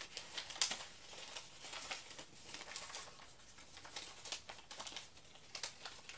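A sheet of paper being folded and creased by hand into a paper fortune teller: irregular crinkling and rustling, with a sharper crackle about half a second in.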